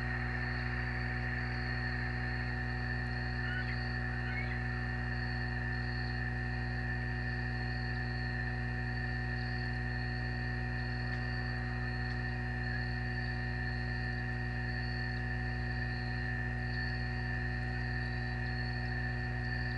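Steady electrical hum made of several fixed tones, with a continuous high, pulsing insect trill over it, like crickets. A few faint chirps come about four seconds in.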